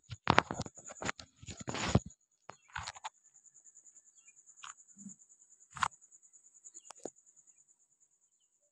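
Insects giving a steady, high, finely pulsing trill. Over the first two seconds there is a burst of loud rustling and knocks, and a few sharp clicks follow.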